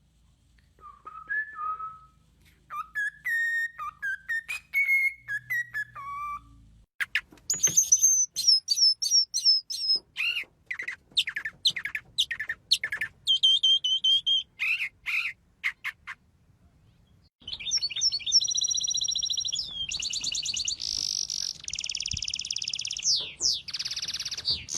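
Bird-like whistled calls in three passages. Gliding whistles come first, then a run of sharp, high chirps, and after a short pause a fast, high trill that runs on.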